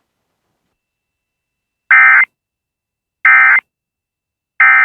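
Emergency Alert System end-of-message code: three short bursts of digital data tones, about a second and a half apart, starting about two seconds in. They signal the end of the alert.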